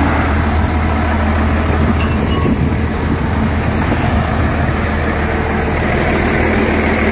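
Bus engine idling steadily with a deep, even hum.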